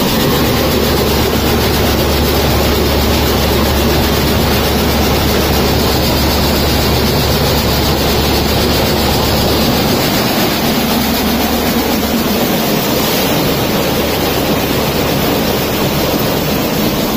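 Peanut sheller (groundnut decorticator) running while shelling pods, a loud steady rushing rattle, with a low hum underneath that fades about ten seconds in.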